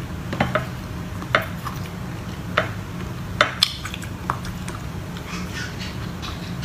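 Eating noises from a hand-eaten shrimp meal: about six scattered sharp smacks and clicks of lips, fingers and shell. A low steady hum runs underneath.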